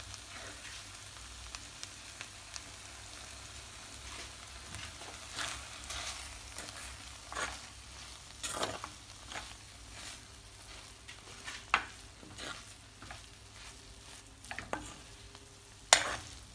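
A spoon stirs and scrapes dry-cooked anchovies and grated coconut in a pan over a low flame, with a faint sizzle from the coconut oil just added. Scattered clicks of the spoon on the pan come through, the sharpest near the end.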